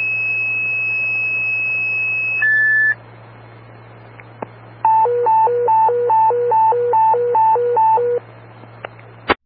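Fire dispatch alert tones over a scanner radio: a steady high tone held for about two and a half seconds, stepping down to a brief lower tone. After a short gap comes a hi-lo warble, eight high-low pairs in about three seconds, over a constant low radio hum.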